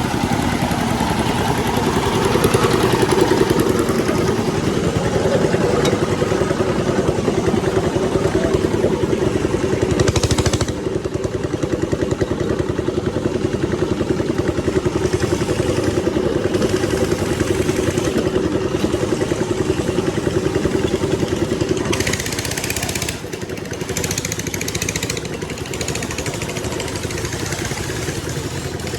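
An engine running steadily with a constant pitched hum; the sound gets quieter and changes about two-thirds of the way through.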